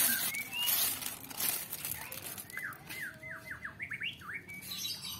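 Plastic bag crinkling in a hand during the first second or so. Then a bird sings a quick run of short falling whistled notes.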